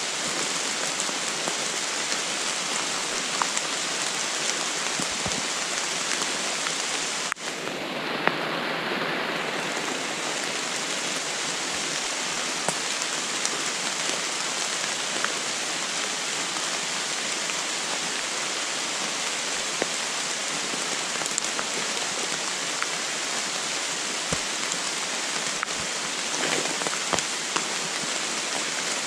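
Steady rain falling on forest leaves: an even hiss with scattered faint ticks of single drops.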